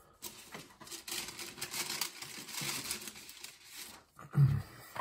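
A sheet of paper being handled and laid out on the bench: crinkly rustling for about four seconds, then a brief low hum near the end.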